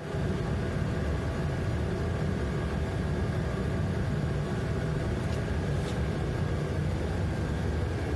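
Steady low engine rumble, like a large engine or generator idling, with a few faint steady tones above it.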